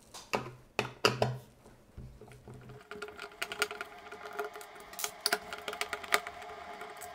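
Phillips screwdriver clicking and ticking against small screws and the plastic speaker housing as the screws are backed out, in irregular sharp clicks. Faint background music with a light percussive beat comes in about three seconds in.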